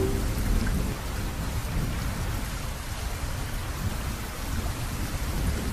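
Heavy rain falling steadily, with a deep low rumble underneath.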